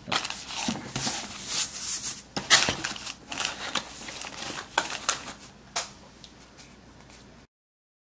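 Parts being packed back into a small cardboard box and the box folded shut: rustling, scraping and light knocks of cardboard and the contents, with a sharper click about six seconds in. The sound then fades and cuts off abruptly near the end.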